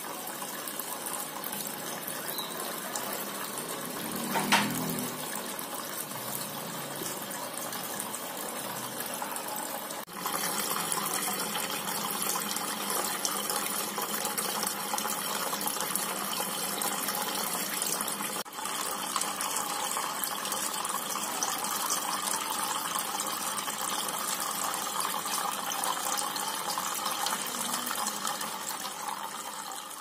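Water from a small homemade cement waterfall fountain pouring in thin streams into the pool of water below: a steady splashing trickle. There is a brief knock about four seconds in, and the splashing is louder from about ten seconds on.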